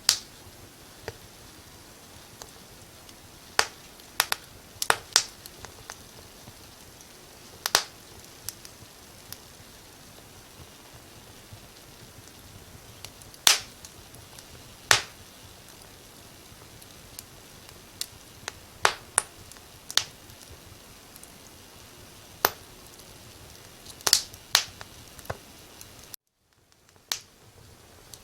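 Firewood burning in a fireplace, crackling with irregular sharp pops over a soft steady hiss. About 26 seconds in the sound cuts out for under a second, then fades back in.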